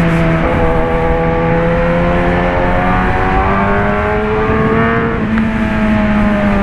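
Kawasaki Ninja ZX-10R inline-four engine running through an SC Project CRT exhaust under riding load. The engine note climbs slowly for several seconds, then shifts and drops back a little about five seconds in.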